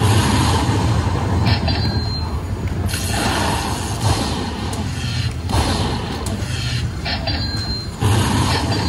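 Lightning Link slot machine's electronic thunder-crack sound effects. Each loud, rumbling crack starts suddenly, about every two and a half seconds, as a lightning bolt collects a heart prize into the win total after the free spins.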